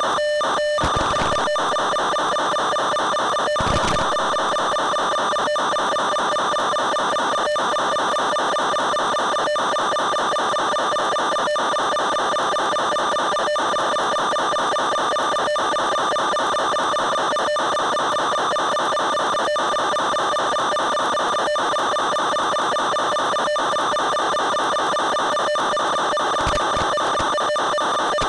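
Steady buzzing drone of an FPV plane's electric motor and propeller at an even cruise throttle, picked up by the onboard microphone. It has brief dropouts about every two seconds and a few short low wind bumps.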